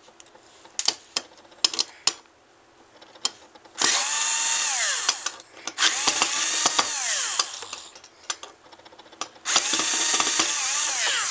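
Power drill unscrewing the screws of a hard drive casing, run in three short bursts, each spinning up with a whine and winding down. Light clicks of the bit and screws come before the bursts.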